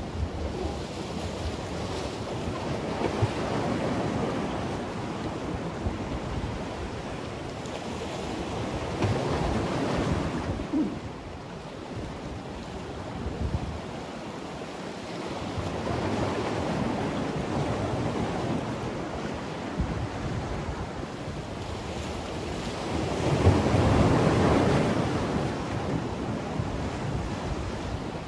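Sea waves surging and washing against the concrete blocks of a breakwater, swelling and fading about every six or seven seconds, loudest near the end.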